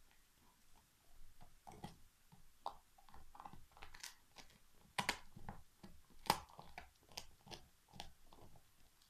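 Alaskan Malamute gnawing and crunching a big turkey bone: irregular cracks and crunches, the two sharpest a little past halfway.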